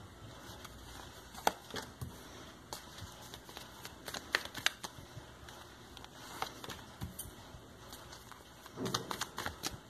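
A deck of tarot cards being shuffled by hand: soft, irregular rustling and slapping of cards against each other, with a few sharper clicks.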